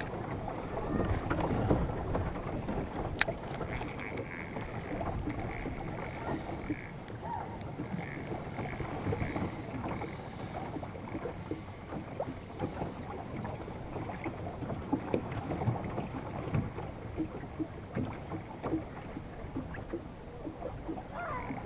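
Lake water lapping and splashing against a small boat's hull, with wind on the microphone. There is a sharp click about three seconds in, and a spinning reel is cranked in short spells.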